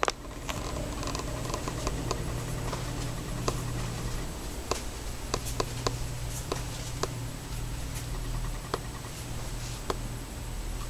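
Irregular small clicks and light scratching from a handheld camcorder being moved, over a steady low electrical hum from the camera.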